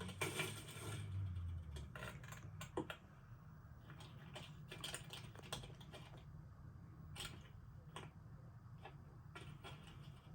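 Scattered light clicks and taps, irregular and unevenly spaced, over a low steady hum, more crowded in the first second.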